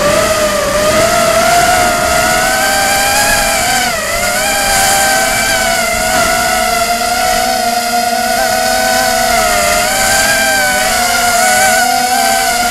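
Racing quadcopter's electric motors and propellers whining in flight, heard up close through the onboard camera. Several tones waver in pitch together as the throttle changes, with a brief dip about four seconds in.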